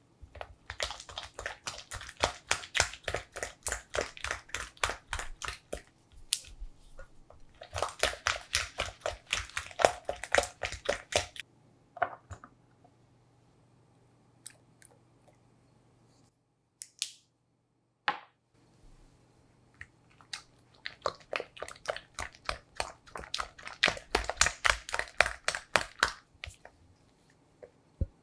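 A spatula quickly stirring and folding soft cream cheese batter in a bowl: rapid wet squishing strokes, several a second, in three long runs with pauses between.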